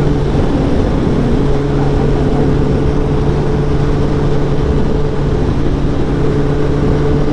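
Honda CBR1000RR SP's inline-four engine running at a steady cruise, with wind rushing over the microphone.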